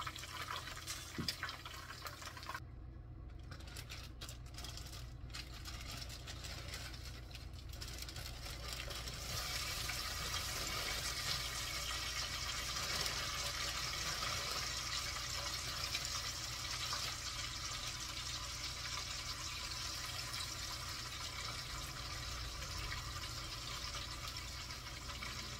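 Hot oil sizzling in a skillet, first around frying chicken wingettes. About nine seconds in, once the thin-cut fries are in the oil, the sizzling grows louder and denser and stays steady.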